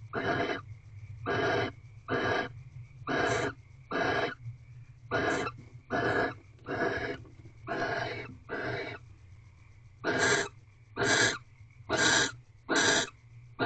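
Barn owl giving harsh, rasping hiss calls, one about every second, with a brief pause about nine seconds in before the calls resume.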